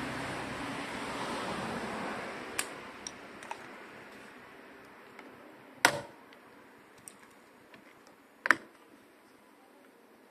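Plastic door-trim clips on a Chevrolet Cobalt's front door snapping as the trim is pried and pulled loose: a few small clicks, then two loud sharp snaps a couple of seconds apart and some faint clicks. A steady hiss fades out over the first few seconds.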